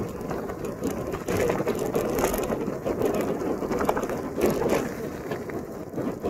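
A bicycle rolling along a wet, gritty concrete path: a steady rough rattling and crunching of tyres and bike over the wet grit.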